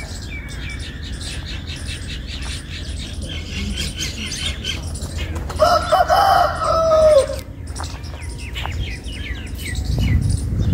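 A rooster crows once about halfway through, a multi-part call ending on a long falling note, louder than anything else. Around it runs a rapid, rhythmic high-pitched chirping or rattling.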